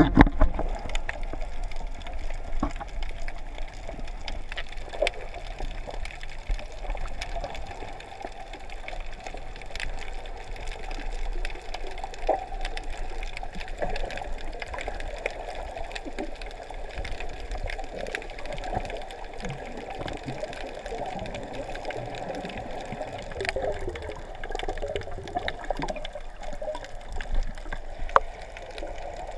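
Water heard underwater by the camera's microphone: muffled sloshing and bubbling with many small scattered clicks and crackles.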